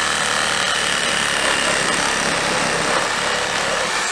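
Cordless reciprocating saw running steadily as its blade cuts through a part clamped in a bench vise.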